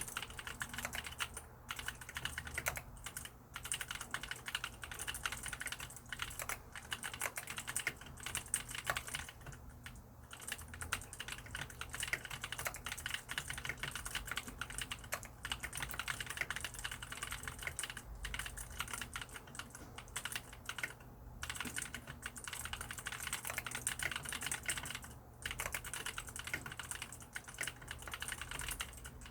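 Mechanical keyboard with lubricated blue (clicky) switches being typed on continuously: a rapid stream of key clicks, with a few short pauses.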